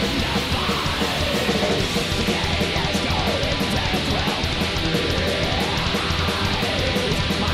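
Rock music with electric guitar, playing steadily over the slow-motion footage.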